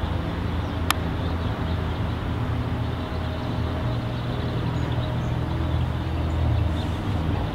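A putter strikes a mini-golf ball once, a single sharp click about a second in, over a steady low hum.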